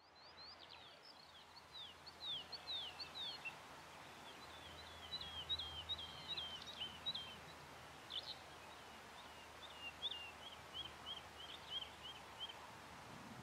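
A small songbird singing several phrases of short, high, falling chirps. The last phrase is a quick run of repeated notes that fades away, over faint outdoor background noise.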